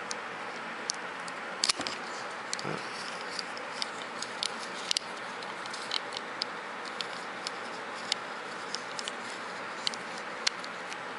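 Hard plastic parts of a Robots in Disguise Optimus Prime toy clicking and tapping as they are handled and worked apart: scattered small irregular clicks, with a few sharper ones, over a steady hiss.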